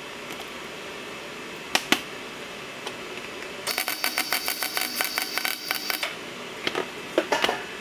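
Rapid metallic clicking with a ringing tone for about two and a half seconds, from work on the turbo exhaust pipe. A few single sharp clicks come before and after it, over a steady hiss.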